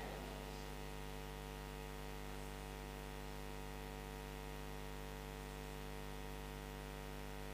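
Faint, steady electrical mains hum from the microphone and sound system, a low hum with a stack of higher tones above it that does not change.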